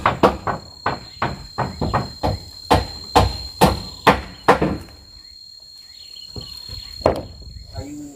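Hammer driving nails into wooden wall boards: about two blows a second for the first five seconds, then a pause and one last blow about seven seconds in. A steady high insect trill sounds underneath.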